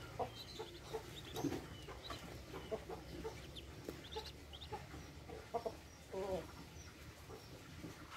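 Two-day-old Muscovy ducklings peeping: short high calls in quick, irregular succession, with some lower, fuller calls mixed in.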